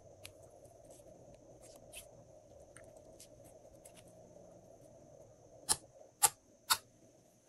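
Glossy slime being stretched and pressed by hand, giving small faint sticky clicks, then three loud, sharp pops about half a second apart near the end as fingers press into the slime.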